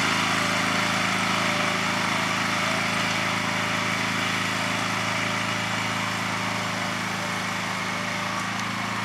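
Small gasoline engine of a walk-behind wire-burying plow running steadily under load as it cuts the wire into the lawn, growing slowly fainter.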